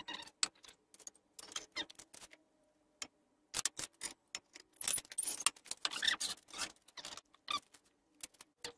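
Scattered light clicks, taps and rattles of a wooden 2x4 and small hand tools being handled, thickest in the second half.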